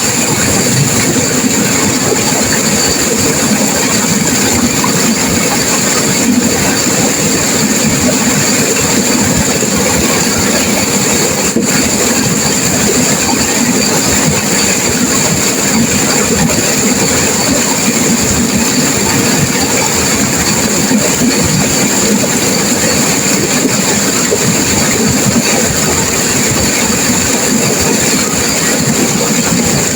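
Turbulent river water rushing and crashing, a loud, steady, unbroken noise with no distinct events.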